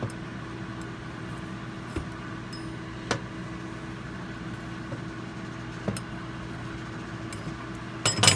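Air fryer preheating, its fan running with a steady hum. A few sharp taps come through, with a louder quick cluster of them near the end.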